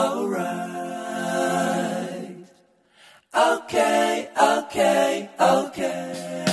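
Vocal music: singing with little or no instrumental backing. It breaks off briefly about halfway through and then resumes.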